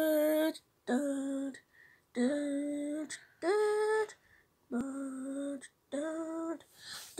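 Slow lullaby melody from a baby mobile video, played through a laptop's speakers. A soft humming voice holds one note at a time: six notes with short pauses between them, and one note about three seconds in rising higher.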